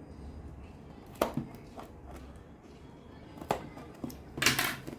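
Hands handling a cardboard product box: two sharp taps or knocks, then a brief scraping rustle near the end, over a steady low hum.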